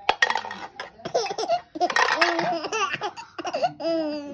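A baby laughing hard, in several short bursts one after another.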